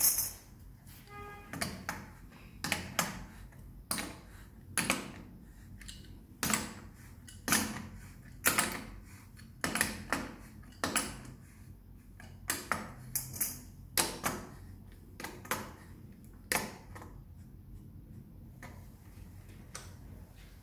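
Chrome bath-shower mixer being fitted by hand onto its wall connectors: irregular metallic clicks and taps, about one or two a second, as the metal parts knock together and the coupling nuts are turned. There is a brief ringing tone about a second in.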